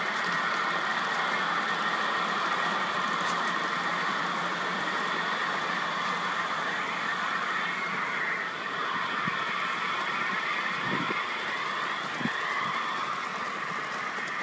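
Electric motor and gear whine of a 1/32 scale model Class 22 diesel locomotive, driven by twin Maxon motors through ABC gearboxes and Delrin chain drive, running steadily on track while hauling seven brass carriages. The whine wavers a little in pitch, with a few faint clicks about two thirds of the way through.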